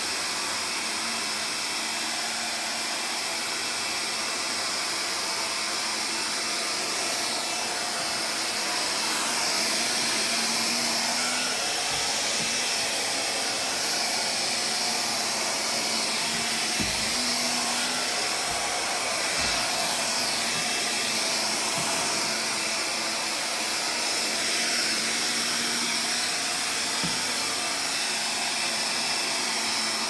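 Stick vacuum cleaner running steadily on carpet: a constant rush of suction with a high motor whine, and a few soft bumps of the floor head partway through.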